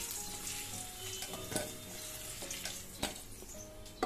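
Diced potatoes sizzling in hot oil in a kadai while being stirred, with a spatula knocking against the pan three times.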